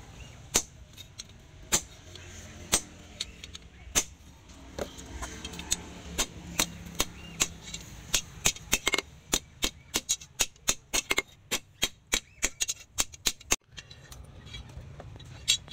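Hand hammer striking a steel leaf-spring sword blade on a cylindrical steel anvil: sharp ringing blows, about one a second at first, then quicker, two or three a second, before stopping about two seconds from the end, with one last blow near the end.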